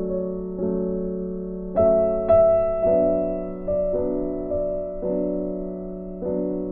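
Background piano music: slow, soft chords, a new one struck about once a second and left to ring and fade.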